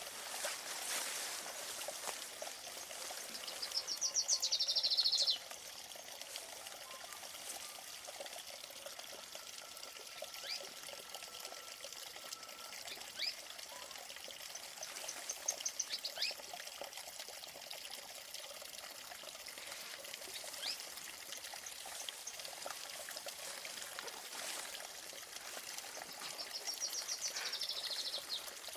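A small stream trickling steadily, with a bird singing a rapid trill three times (about four seconds in, midway and near the end), the first trill the loudest, and a few short chirps between.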